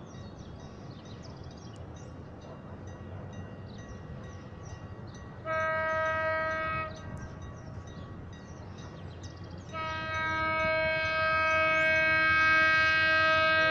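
Diesel locomotive air horn (EMD GT22CW) sounding as the train approaches the station: a short blast about five and a half seconds in, then a long steady blast from about ten seconds in that carries on, over the low rumble of the oncoming train.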